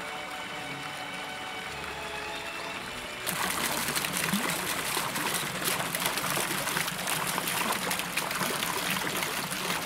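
Running water splashing steadily, coming in suddenly about three seconds in, over faint background music.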